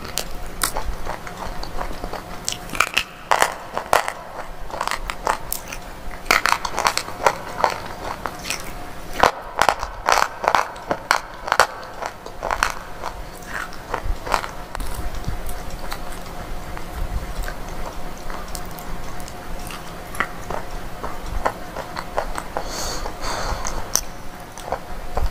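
Biting and chewing hard, brittle slate pieces right at a microphone. Sharp crunches come thick and fast through the first half, then ease into quieter chewing with a few more crunches near the end.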